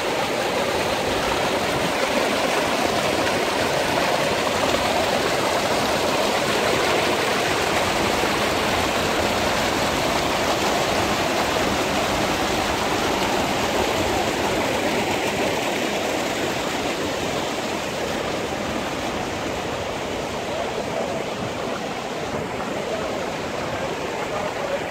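River-fed water pouring from inlet pipes and splashing into a concrete fish tank: a steady rushing splash that eases slightly in the later part.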